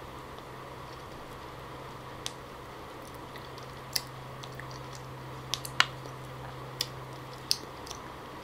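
Eating the pulp of a wild jackfruit off a wooden spoon: a scattering of short, wet clicks and squishes, the loudest a little before six seconds in. A steady low hum runs underneath.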